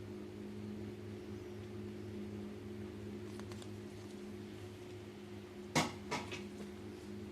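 Steady low electrical hum, with two short sharp clicks close together about six seconds in.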